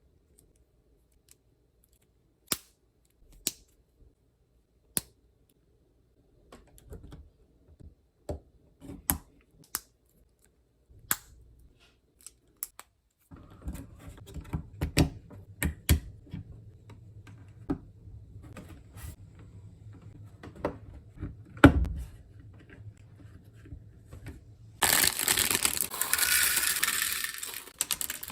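Plastic Lego bricks being handled and pressed together: scattered sharp clicks and clacks, getting busier about halfway through. Near the end there is a loud continuous rustling clatter.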